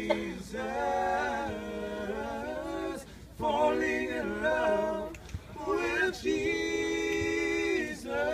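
A male vocal trio singing a cappella in close harmony, in three phrases with long held chords and short breaks between them.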